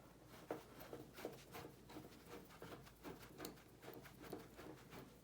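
Faint, irregular small clicks and scrapes of a hand screwdriver working screws out of a space heater's metal casing.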